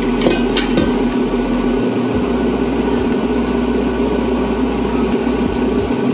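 A steady mechanical hum, with two sharp metallic clicks in the first second from a ratchet wrench being worked on a drain bolt on the scooter's gear case.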